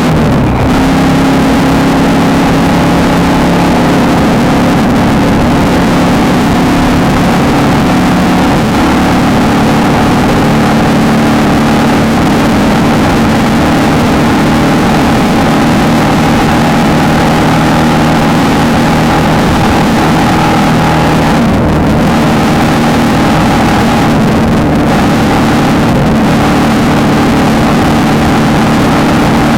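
VW Beetle off-road race car's air-cooled flat-four engine running hard and steady at high revs, loud and continuous, easing briefly a couple of times near the end.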